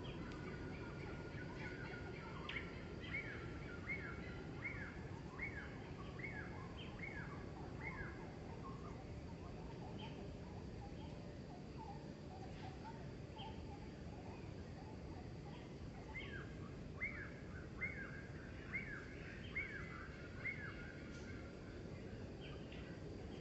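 A bird calling in two runs of short, high, downward-sliding notes, a little faster than one a second, over a steady low outdoor background.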